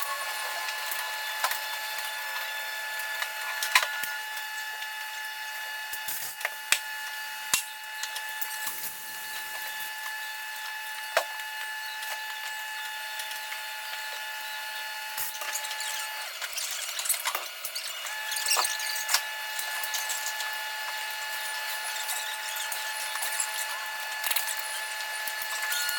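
Scattered clicks and knocks of hand work on a car's wiring and parts, over several steady high-pitched tones.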